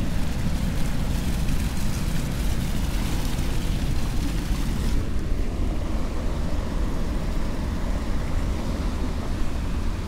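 Ocean waves washing on a rocky shore, heard through a steady, uneven low rumble of wind on the microphone; the higher hiss of the surf softens about halfway through.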